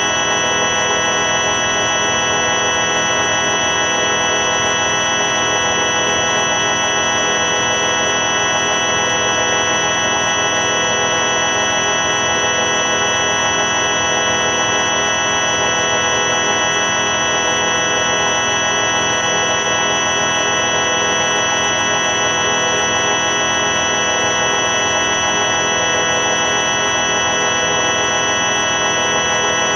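Steady electronic drone of many stacked tones, organ-like and buzzing, holding unchanged throughout: audio run through the 4ormulator V5 effect.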